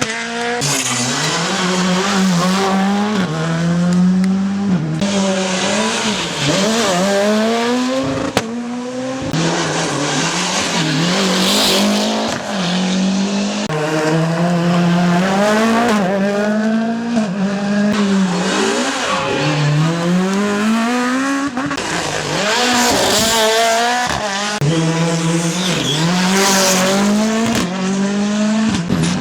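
Rally car engines at full throttle, revving up through the gears and dropping back again and again, with hiss from the tyres. There is a single sharp pop about eight seconds in.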